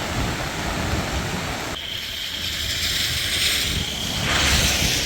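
Heavy rain falling in a steady hiss, with wind buffeting the microphone as a low rumble. The sound changes abruptly about two seconds in, and a steady high tone then runs under the rain.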